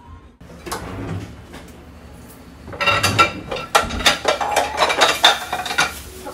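Dishes and metal cutlery clattering and clinking as used kitchenware is handled and cleaned at the counter. A quicker run of loud clinks and knocks starts about three seconds in.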